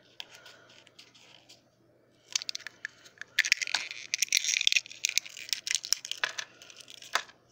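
Fingers cracking and picking apart the thin, brittle shell of a Hatchimals CollEGGtibles toy egg: a fast run of small crackles and crunches begins about two seconds in, with a couple of sharper snaps near the end.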